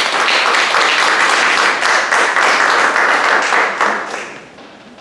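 A small audience applauding, a dense patter of hand claps that dies away about four seconds in.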